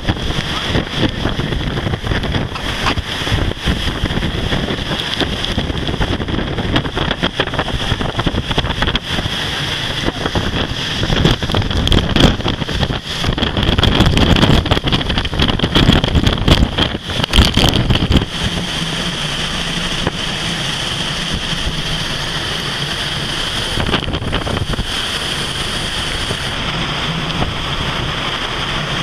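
Storm wind at sea gusting hard against the microphone, over rough waves and spray. It comes in surges for about the first two-thirds, then settles to a steadier rush.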